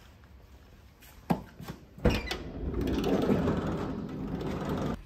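Toyota HiAce sliding door being opened: a sharp click of the handle, then a loud clunk as the door unlatches about two seconds in and rolls open. A few seconds of steady rustling noise follow.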